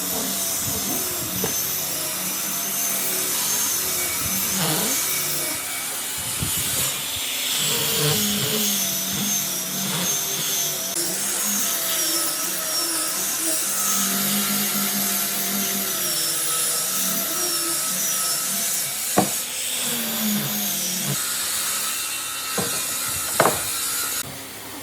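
Electric power tool working wood, its motor whine wavering up and down in pitch as the load changes, with a couple of sharp knocks near the end.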